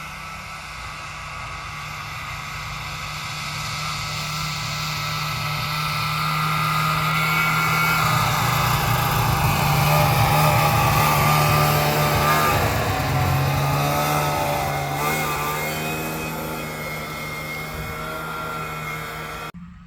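Snowmobile engine running as it approaches, grows loudest about halfway, and then draws away. The sound cuts off suddenly just before the end.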